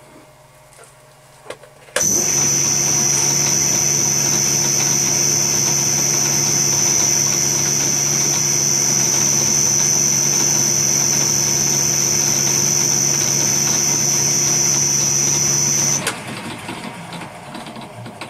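Machine spindle switched on with a cup grinding wheel mounted on an arbor, spinning up suddenly about two seconds in and running at steady speed with a low hum and a high whine while the wheel's run-out is checked. It is switched off near the end and winds down.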